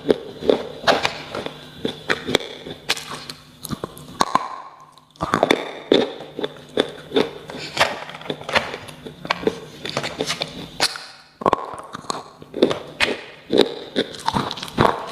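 Close-up crunching and chewing of slate pencil: sharp, irregular crunches several times a second, broken by two brief pauses, about four and eleven seconds in.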